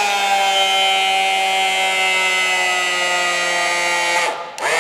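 Portable electro-hydraulic rebar bender's 1500 W single-phase electric motor running as the ram bends a steel reinforcing bar: a steady, loud whine whose pitch sinks slowly under the load. It cuts off about four seconds in with a brief falling wind-down.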